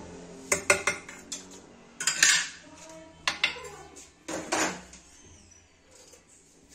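A metal spoon clinking and scraping against a glazed clay tagine dish, in several clusters of sharp knocks over the first five seconds.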